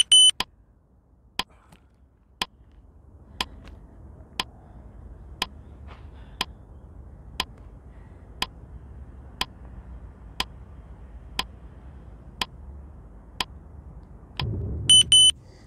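Countdown timer sound effect counting down a 15-second rest interval: a short high double beep, then a clock-like tick once a second, about fourteen ticks. Near the end a brief low rush of noise leads into a quick run of high beeps.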